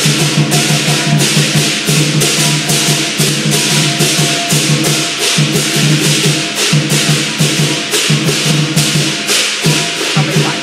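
Chinese lion dance percussion: the big lion drum beaten with cymbals, keeping a steady beat of about three strokes a second.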